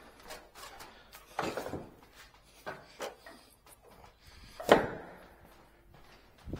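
Scattered knocks and thuds from table tennis play, with a few softer ones and one loud, sharp knock about three-quarters of the way through.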